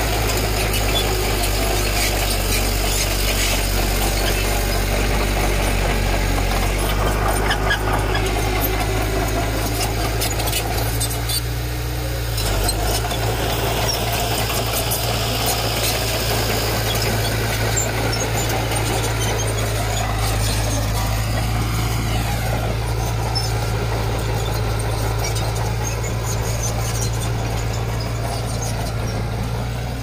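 Diesel engine of heavy construction equipment running steadily under work, with a constant low engine hum and a few brief rising and falling whines about two-thirds of the way through.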